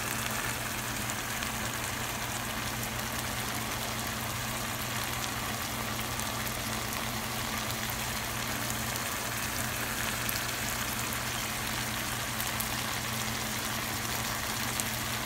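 Sweet corn with diced peppers and onions sizzling steadily in a frying pan, with fine crackles and pops of hot fat, over a steady low hum.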